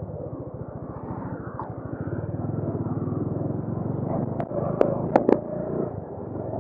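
Motorcycle engine running with an even, fast low pulsing. About four and a half seconds in come four sharp clicks.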